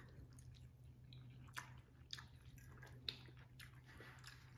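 Near silence: faint chewing of a mouthful of shrimp and sausage stew with rice, with a few soft clicks of a fork against the plate, over a low steady hum.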